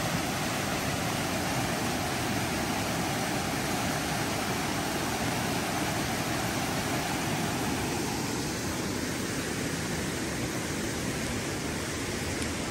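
Steady rush of a mountain stream cascading over boulders in small waterfalls.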